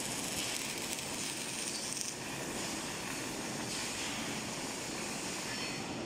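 Steady hissing factory-floor noise, with electric arc welding going on at the steel tube panels.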